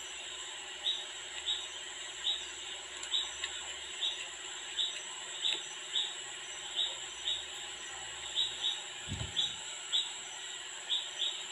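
Short high chirps from a small animal repeat about twice a second, now and then in pairs, over a steady hiss. A soft low thump comes near the end.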